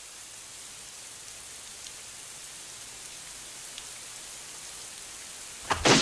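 Steady heavy rain hiss. Near the end comes a sudden loud burst of noise, starting with a couple of sharp strikes.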